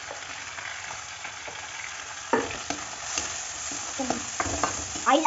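Vegetables sizzling as they fry in hot oil in a metal kadhai, with a plastic spatula scraping and knocking against the pan as they are stirred: a stroke about two seconds in and a run of strokes near the end.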